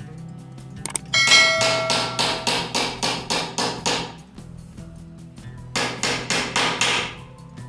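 Hammer blows in two quick runs of about four to five strikes a second. The first run opens with a brief metallic ring, typical of driving nails while assembling a wooden drawer.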